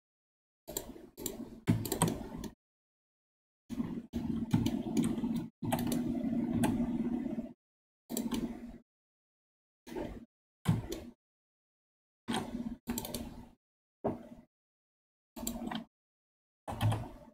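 Computer keyboard keys and mouse clicks in short irregular bursts, with dead silence between the bursts and a low hum under each one.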